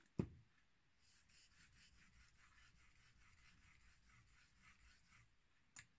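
Faint, rapid scraping of a straight razor's steel blade worked back and forth in short strokes on a 4000-grit Naniwa Chemical whetstone, about four strokes a second. A dull thump comes just after the start.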